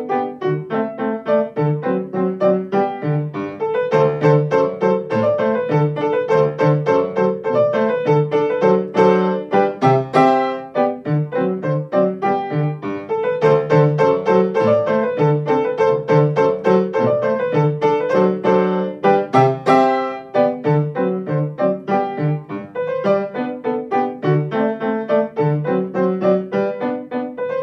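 A Grotrian-Steinweg grand piano played solo, a classical piece with a melody over a regular pulse of bass notes.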